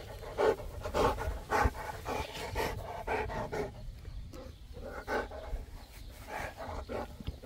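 Boerboel panting close to the microphone, in quick breaths about twice a second that are loudest in the first couple of seconds.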